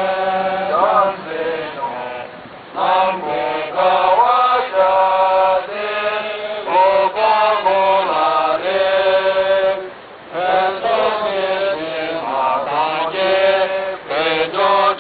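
Voices chanting in long held notes that glide up and down, with short pauses between phrases and a low steady drone underneath.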